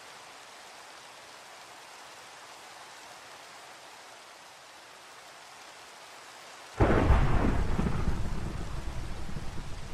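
Steady rain hiss, then about seven seconds in a sudden loud thunderclap whose low rumble slowly fades under the rain.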